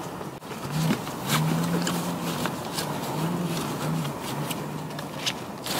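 Rustling and crinkling of a nylon trekking backpack and gear being pushed into its front pocket, a run of short scratchy handling noises, with a faint low drone in short stretches through the middle.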